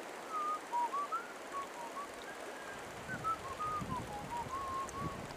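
A person whistling a meandering tune of short notes that step up and down, over the steady rush of river water.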